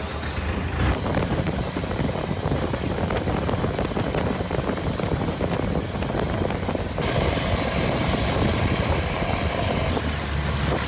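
Motorboat engine running steadily with a low hum, a louder hiss joining it about seven seconds in.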